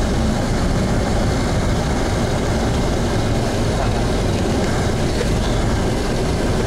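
Steady road noise from riding in a moving vehicle through city traffic: engine and tyre noise mixed with the hum of surrounding traffic, with wind rumbling on the microphone.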